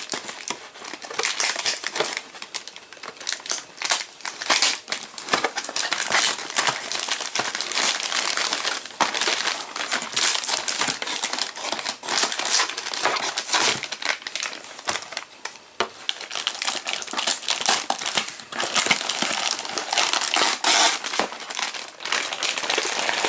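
Packaging crinkling and rustling steadily as items are pulled out of a toy box and unwrapped.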